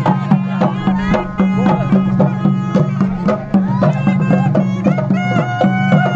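Kodava valaga folk band playing dance music: drums beat a quick, even rhythm under a held low drone and a wavering melody line.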